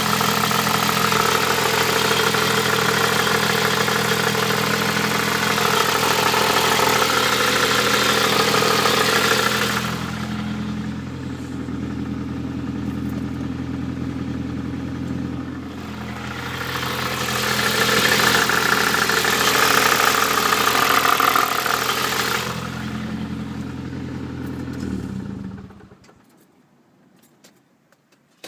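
Nissan Pulsar GTI-R's turbocharged four-cylinder engine idling with an unusual noise from the cylinder head, which the owner fears is not good. A louder hiss rides over the steady engine note at times. The engine is shut off a few seconds before the end.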